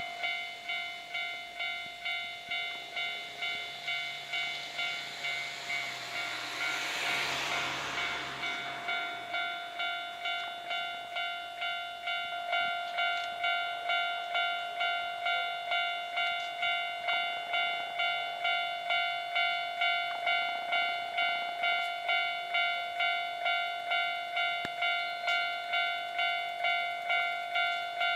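Japanese railway level-crossing warning bell starts ringing and keeps on in a steady, even ding about one and a half times a second, the signal that a train is approaching the crossing. A brief rush of noise swells and fades about seven seconds in.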